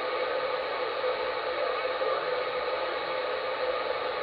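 Steady static hiss from a Uniden 980SSB CB radio tuned to channel 38 lower sideband, with no clear voice coming through.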